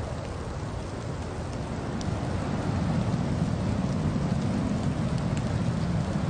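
Steady rushing noise of a car driving through a winter storm, with a low rumble that grows louder about two and a half seconds in and a few faint ticks.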